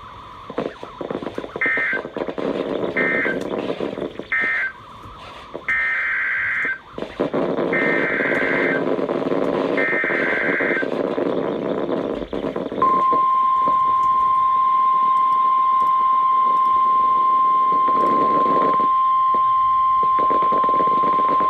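NOAA Weather Radio alert data bursts: three short buzzing end-of-message bursts, then three longer header bursts about a second each, over radio static. About 13 seconds in, the steady 1050 Hz weather radio warning alarm tone starts and holds, announcing the next warning.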